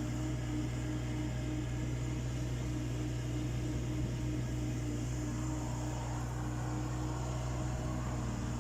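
Mini excavator's Yanmar three-cylinder diesel engine running at a steady speed, a constant low hum.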